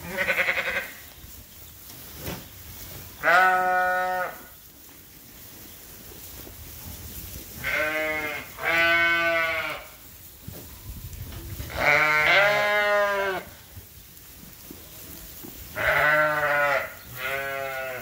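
Sheep bleating: about eight wavering calls, mostly in pairs a second or so apart, with quieter gaps between.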